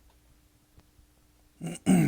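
Faint steady hum of a quiet room, then near the end a man loudly clears his throat: a short rasp followed by a longer, louder hack that falls in pitch.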